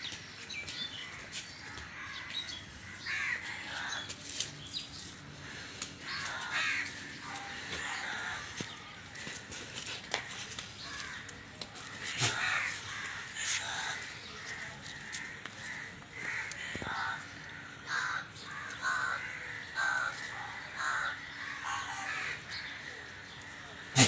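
Many short animal calls in quick succession, repeating irregularly, over a faint steady hum.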